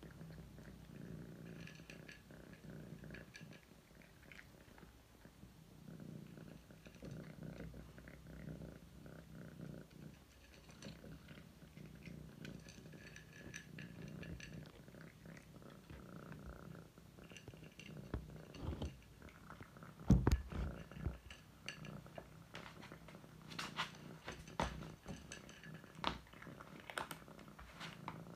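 Domestic cat purring while it eats dry kibble from a ceramic plate, the purr swelling and fading with each breath. Crunching of kibble and clicks against the plate come thick in the second half, with one low thump about two-thirds of the way through.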